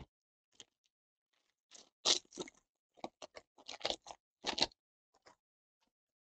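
Cellophane trading-card pack wrapper crinkling and tearing as it is pulled open by hand: a run of short crackles between about two and five seconds in, the loudest near the start and the end of the run.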